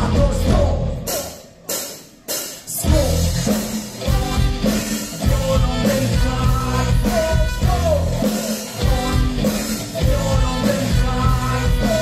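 Live rock-style band music, with drums and bass under a melody line. About a second in the band drops out for a short break punctuated by a few hits, then comes back in full at about three seconds.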